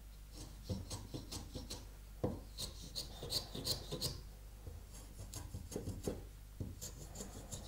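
Small block plane shaving the end of a thin wooden pinch stick in a dozen or so short, quiet strokes, cutting a slight back bevel on the delicate tip.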